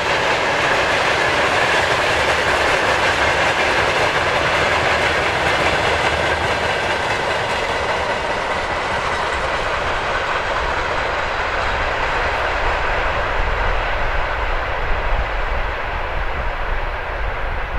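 Freight train wagons rolling along the track, wheels running on the rails. After the last wagons pass, the sound recedes and grows duller as its high end fades.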